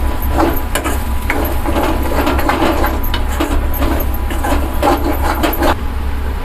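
Steel spoon stirring and scraping scrambling eggs against a metal kadai: repeated scrapes and clicks that stop a little before the end, over a steady low hum.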